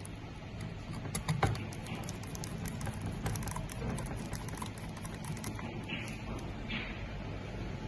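A quick run of light clicks and taps, like small plastic and metal parts and tools being handled while a fiber fusion splicer is taken apart, with one louder knock about a second and a half in. A low steady hum runs underneath.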